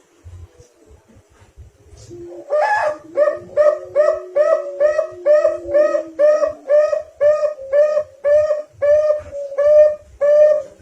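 Zebra dove (perkutut) cooing: a long run of short, evenly spaced coo notes, about two to three a second, starting about two and a half seconds in, with a lower steady tone under the first few seconds. It is a lure sound for getting a perkutut to sing.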